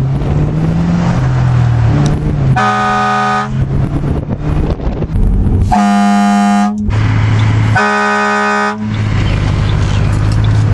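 Vehicle-mounted air horn sounding three blasts of about a second each, with a low engine hum running underneath.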